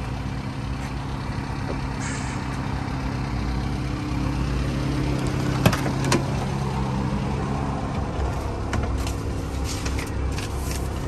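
Subaru Sambar kei truck's small four-cylinder engine idling steadily. A couple of sharp clicks come about halfway through, and paper rustles near the end.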